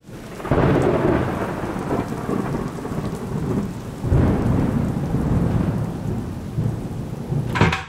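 Thunderstorm: two long rolls of thunder, the first about half a second in and the second about four seconds in, each fading slowly over a steady hiss of rain. The sound cuts off abruptly at the end.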